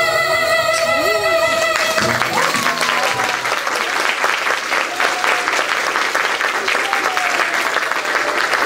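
A recorded children's song ends on a long held note about two seconds in, and the audience breaks into sustained applause with a few voices calling out over it.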